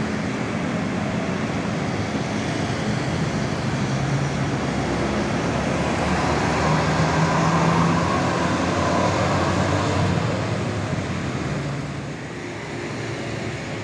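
Road traffic at a busy junction: a tour bus's diesel engine running as it drives past among motorcycles and cars, loudest around the middle and quieter near the end.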